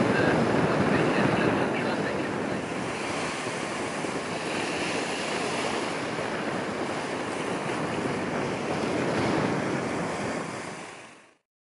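Wind buffeting the microphone over water washing at the shoreline, an even rushing noise that fades out near the end.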